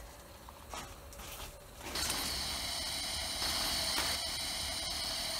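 Live-steam Gauge 1 J65 tank locomotive hissing steam steadily. The hiss starts suddenly about two seconds in, after a few faint clicks.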